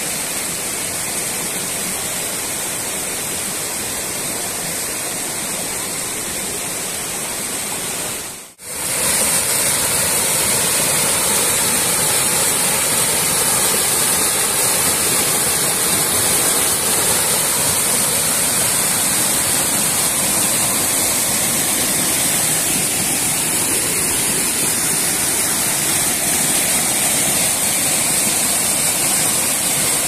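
Water cascading over rocks in a small waterfall: a steady rush of falling water. It cuts out for a moment about eight seconds in, then comes back louder.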